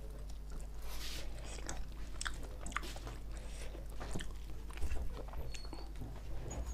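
Close-miked eating: a person biting and chewing chicken, with many irregular wet mouth clicks and smacks.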